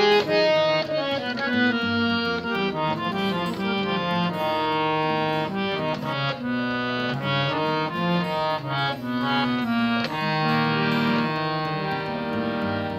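Hand-pumped harmonium being played: a melody of sustained reed notes moving from note to note over lower held notes.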